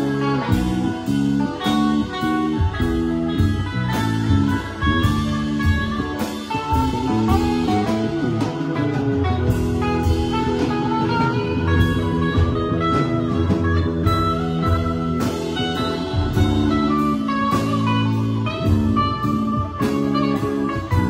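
Live band playing a blues-tinged jam: an electric guitar lead line climbs and falls over bass guitar, keyboards and a steady drum-kit beat.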